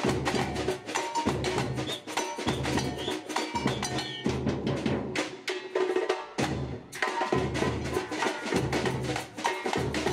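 Samba drum band playing: deep surdo bass drums under snare drums and sharp, high, wood-block-like strikes of small hand percussion. About four seconds in, the bass drums drop out for a break of a couple of seconds, and the full band comes back in about seven seconds in.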